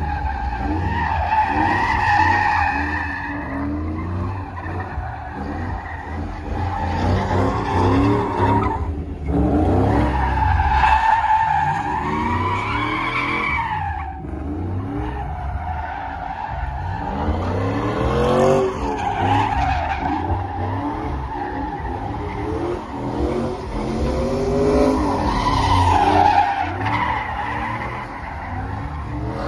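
A car doing donuts: its engine revs up again and again while the tyres squeal steadily as they spin and slide.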